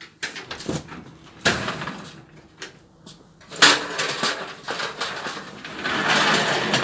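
Garage door being opened: a few knocks and clatters, a loud crash about three and a half seconds in, then a longer rushing rattle near the end.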